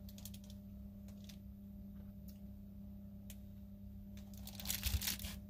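Quiet small-room tone with a steady low electrical hum and a few faint ticks, then a short burst of rustling noise about five seconds in.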